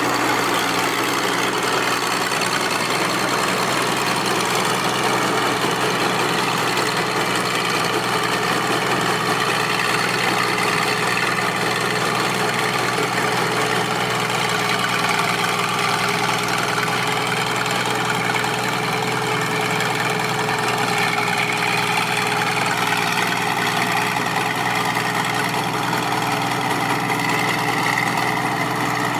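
Tracked combine harvester's engine and machinery running steadily under load, with an even mechanical hum and rattle that stays level throughout.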